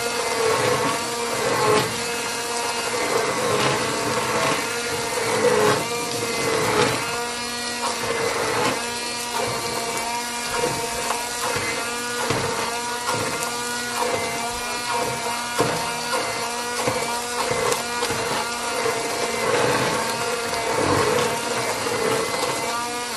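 Handheld immersion blender running in a pot, puréeing cauliflower soup. Its motor whine wavers up and down in pitch as it works through the soup, with occasional knocks.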